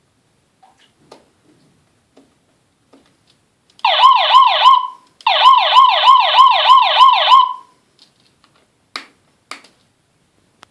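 Electronic RC horn module sounding a siren-style warble: a quick dipping tone repeated about three times a second. It comes in two bursts, one of about a second and, after a short break, one of about two seconds. Faint clicks come before it and two sharper clicks near the end.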